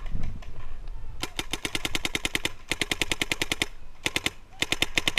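Electropneumatic paintball marker, a Planet Eclipse Etek5, firing fast strings of shots at well over ten a second: one long string of about two and a half seconds, then two short strings near the end.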